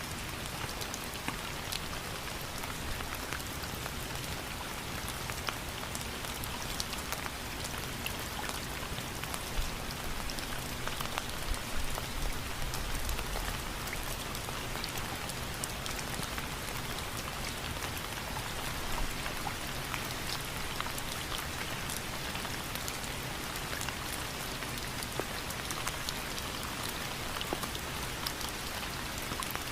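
Steady rainfall: an even hiss of rain with many individual drops pattering on a surface, swelling a little in the low end about halfway through.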